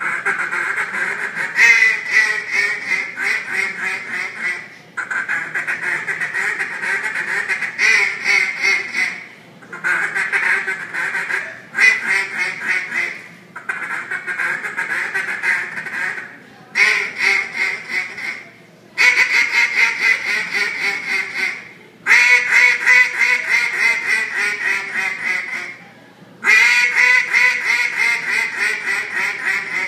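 Mallard duck call blown by mouth in a competition calling routine: runs of rapid quacks lasting a few seconds each, separated by short pauses for breath, some runs falling in pitch.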